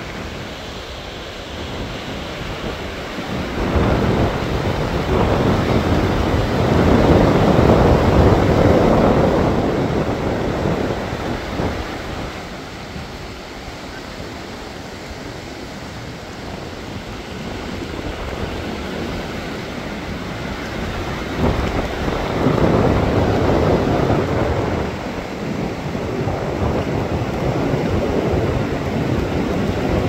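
Rush of river water flowing over a rocky bed, mixed with wind on the microphone, swelling louder twice: about 4 seconds in and again about 21 seconds in.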